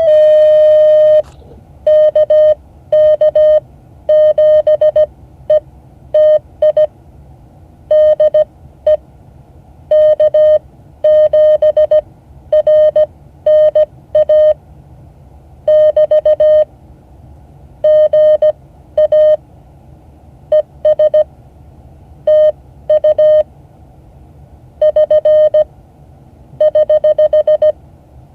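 Morse code sent as a steady electronic beep, keyed on and off in short dits and longer dahs, grouped into letters and words with gaps between. It opens with one long held tone. The message is a practice ham-radio contact: call signs, then abbreviations such as GA (good afternoon).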